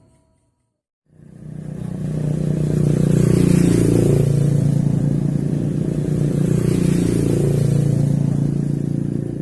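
An engine running steadily, starting after about a second of silence, swelling slightly twice.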